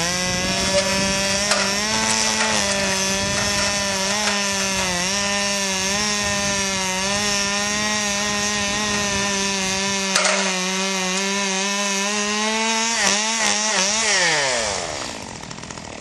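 Two-stroke chainsaw running at high revs, cutting into the tree; about 14 seconds in the revs fall away and it drops back to a quieter idle.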